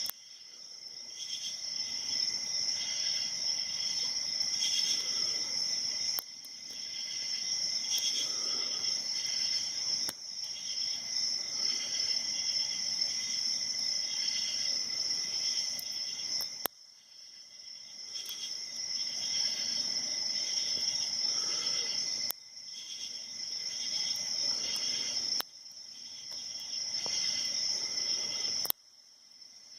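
Steady high-pitched insect chirring, like crickets, that drops out abruptly several times and swells back each time, with a few faint ticks.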